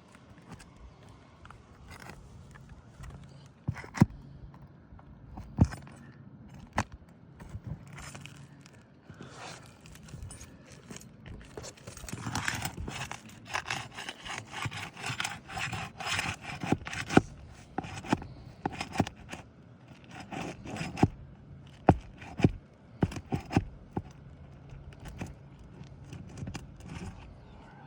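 Shingles being worked loose with a hand tool: scraping and rubbing against the shingles, with scattered sharp clicks and knocks, and a longer run of steady scraping about halfway through.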